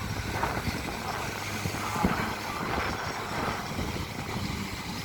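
Steady rush of ocean surf washing into a rocky shoreline pool, with wind on the microphone.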